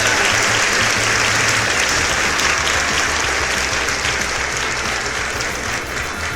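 Large crowd applauding: dense, continuous clapping that slowly fades toward the end.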